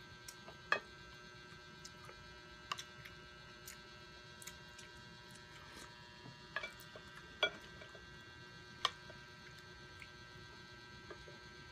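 Eating sounds: wooden spoons tapping and clinking against a glass serving bowl and a plate as soup is scooped, a scatter of short sharp clicks with about five louder ones. Under them runs a steady faint electrical hum.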